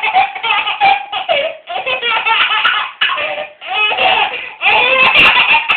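A baby laughing hard: high-pitched belly laughs and giggles in several bouts, with short breaks between them.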